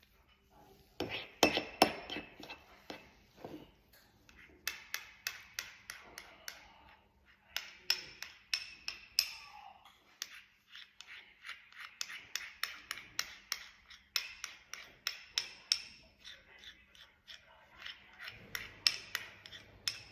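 Repeated light clinks and taps of a utensil against a dish, a few a second in short runs with brief pauses, as a thickening oil mixture is scooped out into portions.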